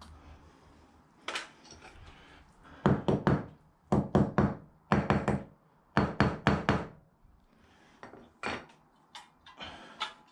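Sharp knocks, mostly in quick runs of three or four strikes about a second apart, with single knocks near the start and near the end.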